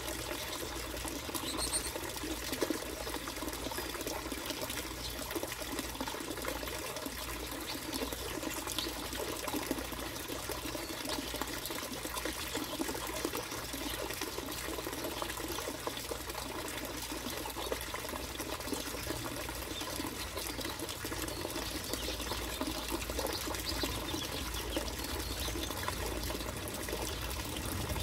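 Steady trickling water.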